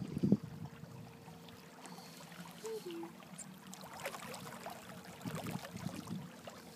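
Water sloshing and trickling against the hull of a small open boat, with a sharp knock right at the start that is the loudest sound.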